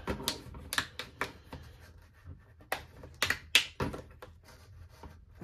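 Irregular sharp clicks and knocks of hard plastic being handled as a Beyblade Burst plastic stadium is pressed and fitted together by hand.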